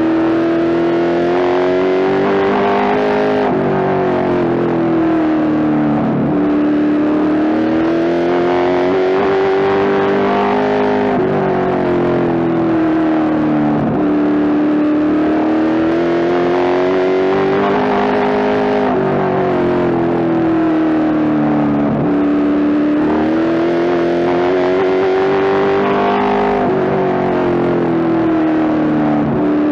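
A Pro Stock (super late model) race car's V8 engine at racing speed, heard from inside the cockpit. Its pitch climbs along each straight and drops sharply when the driver lifts for the turns, repeating about every eight seconds, over steady road and tyre noise.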